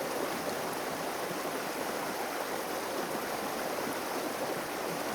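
Running water from a stream, a steady, even rush that holds at the same level throughout.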